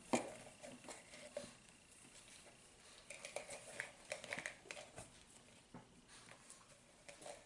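Faint rustling of fabric being handled and folded, with scattered soft taps and clicks.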